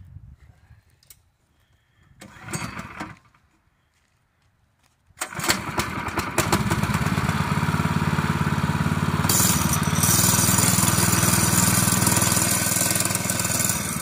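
Predator 212 single-cylinder four-stroke go-kart engine in a homemade plywood RC boat starts about five seconds in and runs steadily. From about nine seconds in it gets a little louder and a rushing hiss joins it as the propeller churns the water with the boat held at the bank.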